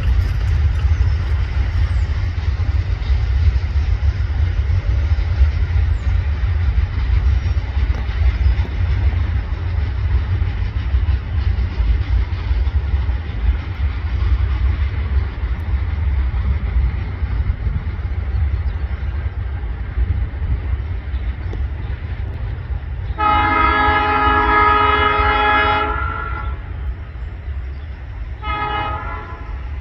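Brandt hi-rail truck's Nathan P3 chime horn, sounding one long blast of about three seconds late on, then two short toots, over a steady low rumble.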